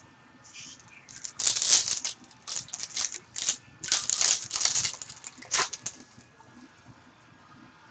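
Foil wrapper of a hockey card pack being torn open and crinkled by hand: a run of sharp, irregular crackles starting about a second in and lasting about five seconds.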